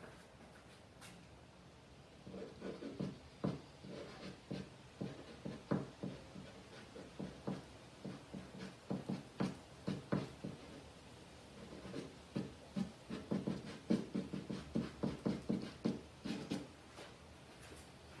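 Charcoal stick scratching across canvas in quick hatching strokes: a run of short scrapes, a few each second, starting about two seconds in and stopping near the end.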